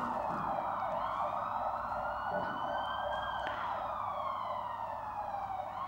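Ambulance siren with a slow wail, its pitch rising gradually over a few seconds and then falling.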